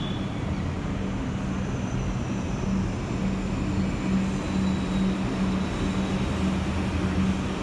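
An M subway train approaching on the elevated track while still some way off: a steady low rumble and hum, with a faint high whine that slowly falls in pitch.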